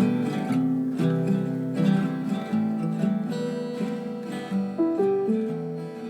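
Acoustic guitar music, plucked and strummed notes in a moving melody.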